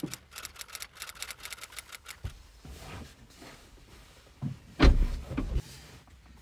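Someone climbing into a car seat: rustling and small knocks, then a heavy thud about five seconds in as the car door shuts.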